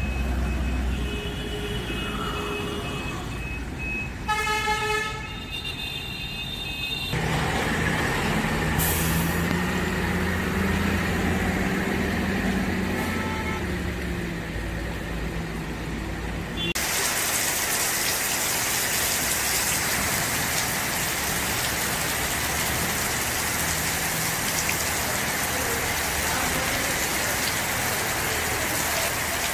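A horn sounds briefly about four seconds in. A heavy truck's engine then runs steadily for about ten seconds, and from about seventeen seconds in heavy rain falls steadily.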